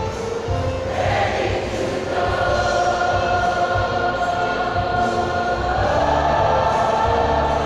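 A large choir singing together, holding long, sustained notes. The singing swells a little louder about two seconds in and again near six seconds.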